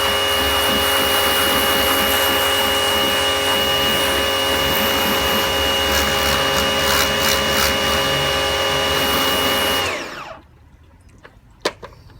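Bosch AQT 35-12 electric pressure washer running steadily with a high motor whine. About ten seconds in it shuts off and winds down quickly, followed by a single sharp click.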